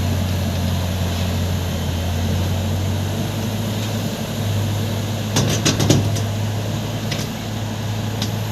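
Heavy vehicle engine running steadily during a lift of a generator engine, with a quick cluster of sharp knocks about five and a half seconds in and another single knock a little later.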